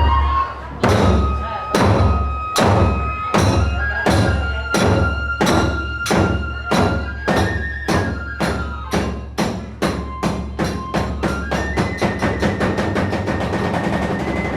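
Kagura hayashi: drum strokes that start about one a second and speed up steadily into a fast roll, under a kagura flute holding long notes that step higher in pitch.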